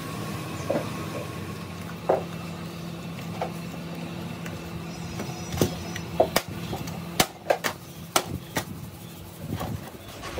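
Small hand hammer tapping on a helmet mold to knock the cast shell loose: a few scattered strikes, then a quick run of about ten sharp taps in the second half, over a steady low hum.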